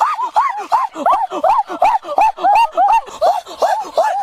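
A rapid run of short, high-pitched animal cries, each rising and then falling in pitch, about four or five a second. The cries sometimes overlap, as if more than one animal is calling.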